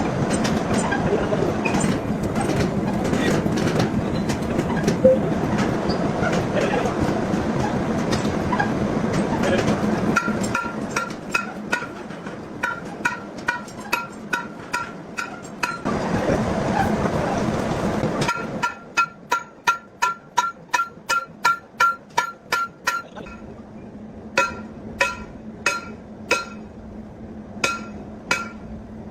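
Heavy workshop machinery running with a dense, steady noise and a low hum, giving way after about ten seconds to ringing metal-on-metal strikes. At first the strikes come several a second, then in a quick regular run of about two to three a second, then more slowly and irregularly.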